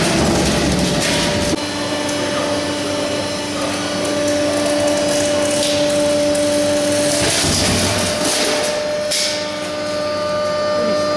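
Baler press for scrap wire running: a heavy low rumble for the first second and a half gives way to a steady machine hum with several fixed tones under a noisy mechanical clatter.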